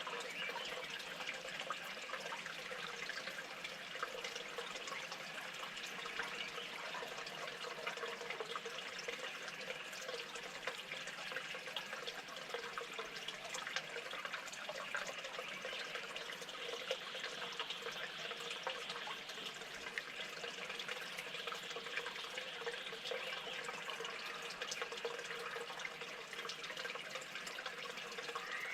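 Steady running water, a continuous trickle with many small drips and splashes.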